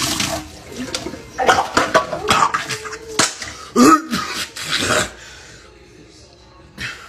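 Hard seltzer splashing out of a can as it is shotgunned and spills down a man's face and shirt, followed by a run of coughing and sputtering from about a second and a half in until about five seconds.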